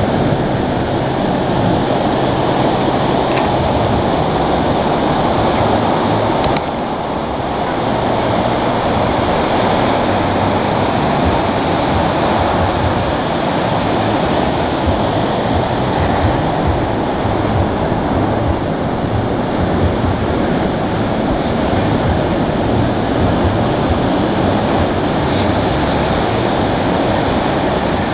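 Ocean surf: waves breaking offshore and washing up the sand in a steady, loud rush.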